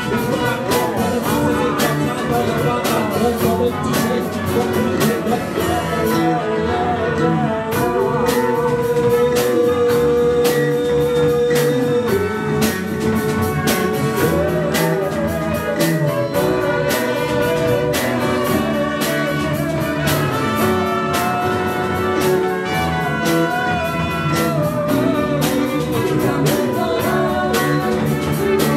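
Live band jamming: trumpets and other horns over a drum kit and keyboard, with voices singing into microphones. About a third of the way in, one note is held for around four seconds over the band.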